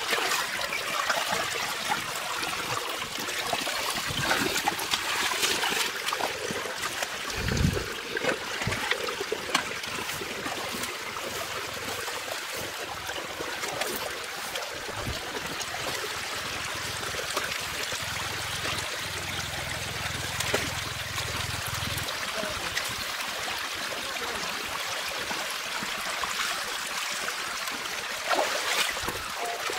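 Shallow water running and trickling along a muddy drain channel, with scattered splashes as hands and a woven basket scoop through it. There is a low thud about seven seconds in.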